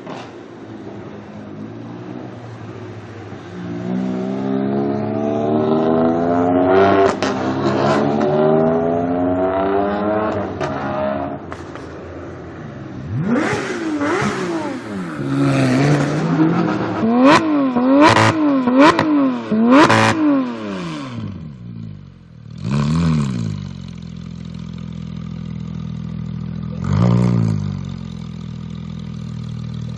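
Porsche 991 GT3 flat-six engine through an iPE titanium exhaust. It pulls up through the revs for several seconds, then gives a run of sharp rev blips. It settles to a steady idle, with a brief blip near the end.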